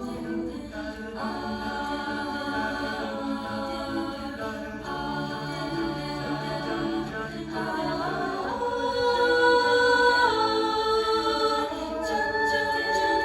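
Music: wordless sung notes with choir-like backing harmonies, held for a second or more each, swelling louder in the second half.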